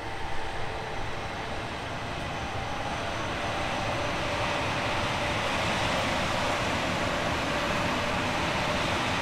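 A train approaching, its running noise growing steadily louder, with a few brief louder bumps about half a second in.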